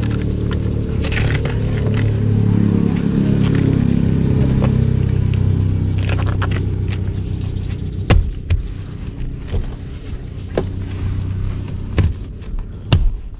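A motor vehicle's engine running, its pitch falling as it fades away over the first several seconds. Scattered sharp clicks and knocks follow in the second half.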